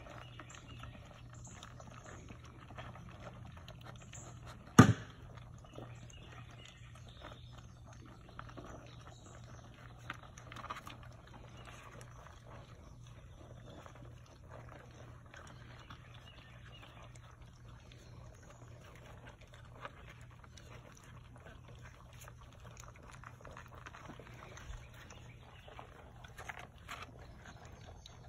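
Great Pyrenees–Anatolian shepherd puppies eating dry kibble from a plastic tray: a steady patter of small crunches and clicks of kibble, with one sharp loud knock about five seconds in and a couple of smaller ones a few seconds later.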